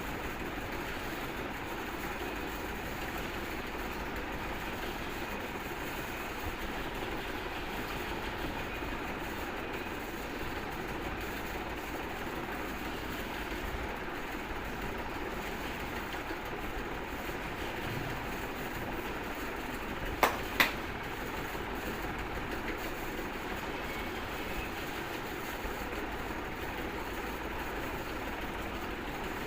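Steady background noise, with two sharp neck cracks a fraction of a second apart about two-thirds of the way through.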